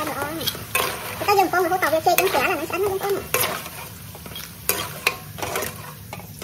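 Oil sizzling in a steel wok as a wire-mesh strainer and metal ladle scrape and knock against the pan, lifting out deep-fried banana pieces. A wavering voice is heard briefly in the first half.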